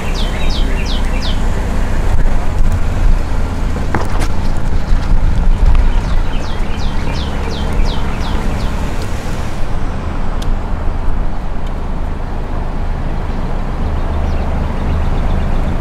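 Steady low rumble of a car with road noise, heard from at the car's open window. A bird calls twice in a quick run of short falling chirps, once near the start and again about halfway through.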